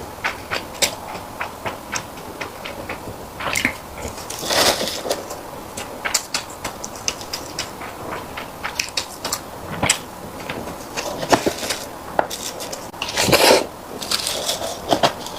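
A person eating close to the microphone: chewing with many quick wet mouth clicks and smacks, and two louder, longer bursts about four and a half and thirteen and a half seconds in.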